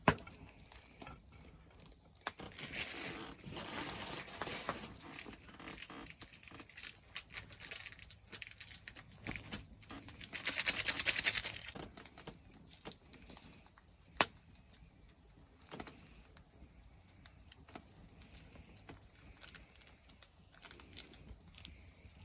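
Intermittent rustling and crinkling handling noises with scattered small clicks, a rasping tearing sound about ten seconds in, and a single sharp click about four seconds later.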